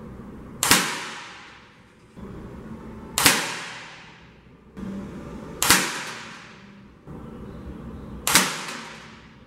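Four shots from a .177 air rifle, about two and a half seconds apart, each a sharp crack that fades out over about a second.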